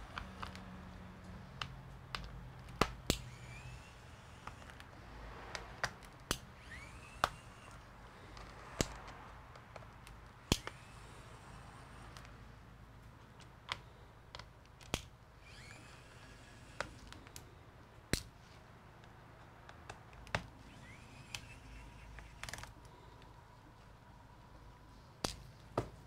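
Scattered small clicks and taps of hand tools and screws on a laptop being taken apart, with a few short rising squeaks.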